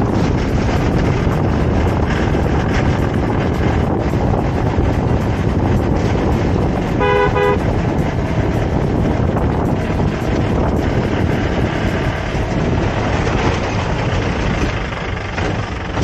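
Steady road and vehicle noise, with a vehicle horn giving a short, quickly pulsed honk about halfway through.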